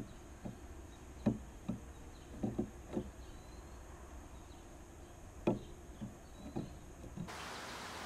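Northern cardinal pecking at seed on the feeder tray, heard close up from inside the feeder: about a dozen short, dull knocks at irregular intervals.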